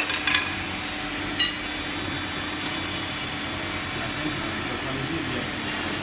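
Steady hum and hiss of a JLC-80KW medium-frequency induction forging furnace running while bar ends heat red-hot in its coil, with one short sharp ring about a second and a half in.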